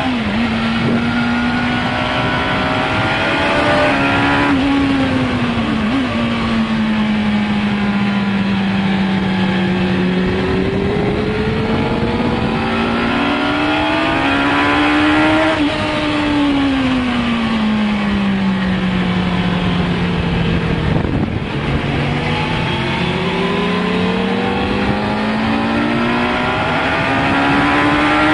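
Onboard sound of a 1996 Suzuki GSX-R 750's inline-four engine running hard at track speed, with heavy wind rush. The revs climb and fall several times, with a long slow drop past the middle and a steady climb again near the end.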